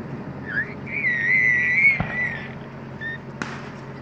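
A firework's high whistle, holding one wavering pitch for about a second and a half, then a sharp crack about two seconds in and a shell burst shortly after.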